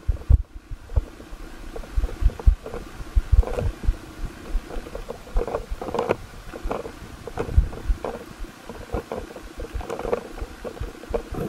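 Underwater camera recording of water movement: irregular low thumps against the camera housing with short muffled bursts of water noise.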